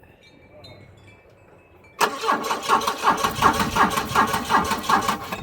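Volvo 940's starter cranking the engine in a steady rhythmic chug for about three and a half seconds, starting about two seconds in, without the engine catching: a crank-no-start.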